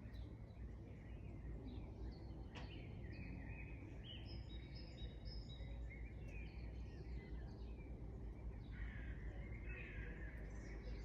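Songbirds singing and chirping, with many short calls and a run of stepped, clear notes about four to five seconds in, over a faint steady low rumble.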